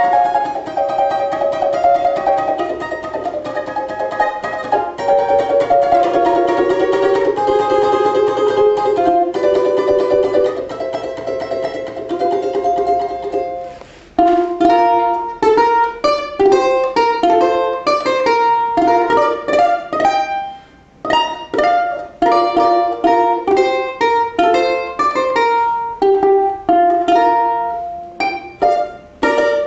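Music played on a plucked string instrument. Fast notes run on for about the first half, a brief gap comes about 14 seconds in, and then sharply picked, separate notes follow.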